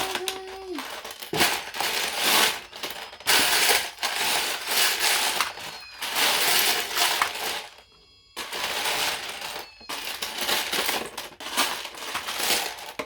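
Loose plastic Lego bricks clattering and rattling as a hand rummages through a pile of pieces, in long stretches broken by short pauses.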